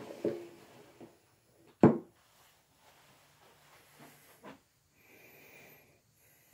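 A single sharp, loud thump about two seconds in, with a few faint knocks and rustles around it.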